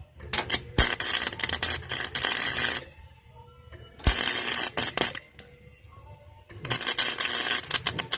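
Electric welder's arc crackling in three bursts, each a few seconds long with short pauses between, as tack welds are laid on a new sheet-metal patch.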